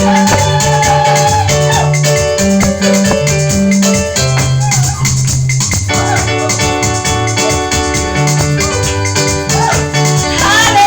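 Praise music: electric keyboard playing organ-like sustained chords over a stepping bass line, with a shaker keeping a steady rhythm.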